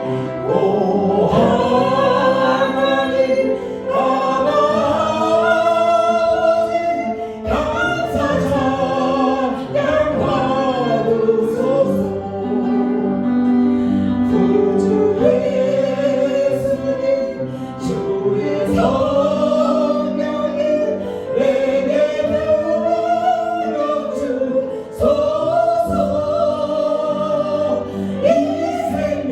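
Congregation singing a Korean worship song together, long held and gliding sung notes over a steady backing.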